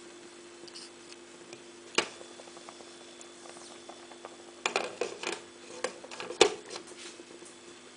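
Glass pot lid clinking and knocking against the rim of a metal cooking pot as it is lifted off and set back on, with a cluster of clicks and then the loudest clack near the end. A single sharp click about two seconds in, over a steady low hum.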